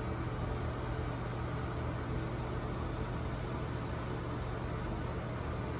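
Steady hum of a running fan: a constant low drone under an even hiss.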